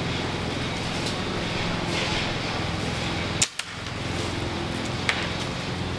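A single sharp crack of a pellet air rifle being fired about three and a half seconds in, with a smaller click about a second and a half later, over steady outdoor background noise.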